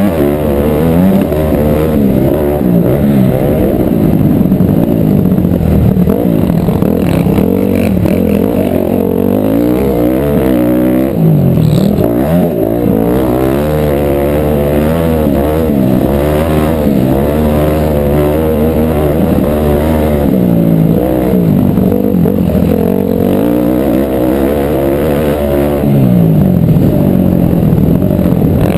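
Motocross bike engine heard close from on board, revving hard up and down without a break as the rider accelerates, shifts and rolls off for corners.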